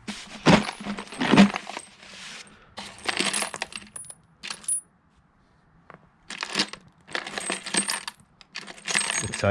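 Loose metal nuts and bolts clinking and jangling as a hand rummages through them, in several bursts of clicks with a short lull about halfway through.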